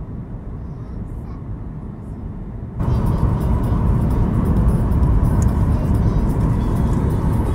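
Steady low drone of an airliner's jet engines heard from inside the cabin during the approach. About three seconds in it jumps suddenly to a much louder rushing noise.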